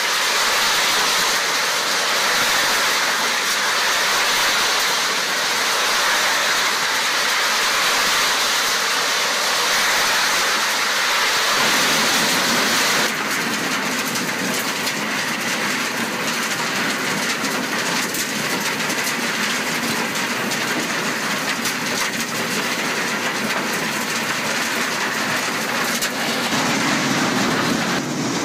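Doppstadt SM518 Plus trommel screen running: topsoil and stones tumbling and rattling through the rotating mesh drum, a loud, steady rushing clatter. About twelve seconds in the sound turns abruptly duller and deeper.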